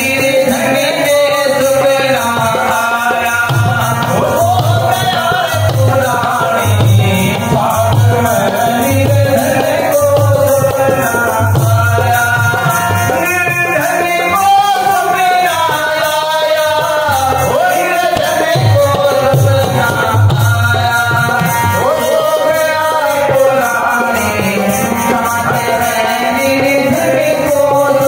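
Live Rajasthani devotional bhajan: a man sings a melody over a harmonium, while a dholak keeps a steady rhythm of low, booming strokes.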